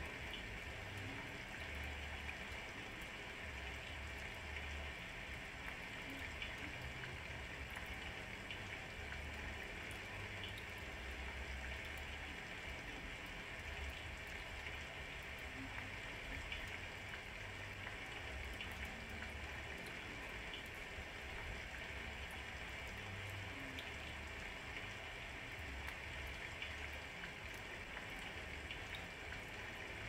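Steady rain falling: an even hiss with scattered small drip ticks, and faint low rumbles coming and going underneath.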